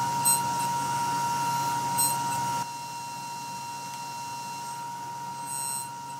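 Table saw with a dado blade running: a steady whine over a low hum, which drops in level about two and a half seconds in. Three brief hissy sounds come on top.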